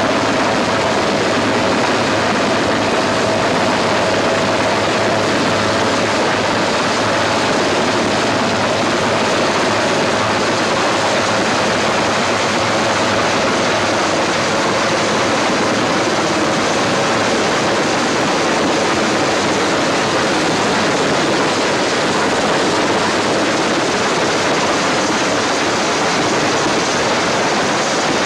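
Helicopter engine and rotor running steadily, a loud continuous noisy drone.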